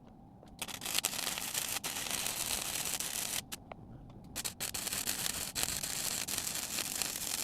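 Welding arc from a small welder crackling and sizzling as a bead is laid, in two runs of about three seconds each with a pause of about a second between.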